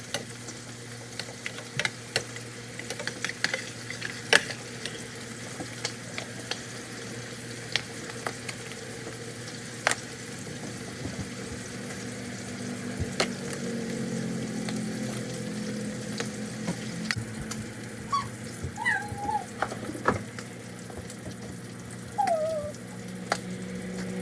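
Food sizzling in a frying pan, with frequent sharp clicks and scrapes of a utensil stirring it.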